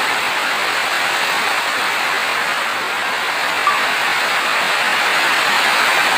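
Steady, dense rain falling with an even hiss, and a single small tick a little past halfway.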